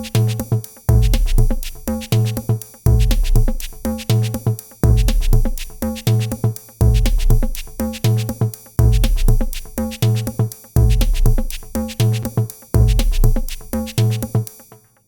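A D16 Lush 2 softsynth preset plays a looping electronic pattern over a drum-machine beat. Bass notes and synth chords repeat about every two seconds, and the pattern stops just before the end.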